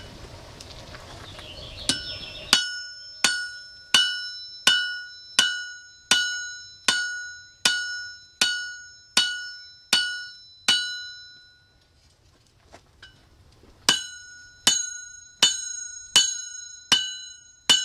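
Hammer blows on a steel anvil at a steady pace of about one and a half a second. Each blow leaves a clear, lingering ring, the ring that marks a good anvil. About a dozen blows are followed by a short pause, then the hammering starts again. A steady rushing noise stops just as the hammering begins.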